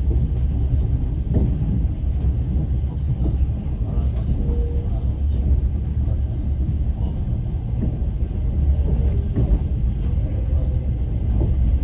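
Passenger train running, heard from inside the carriage: a steady low rumble of the wheels and running gear, with faint scattered clicks.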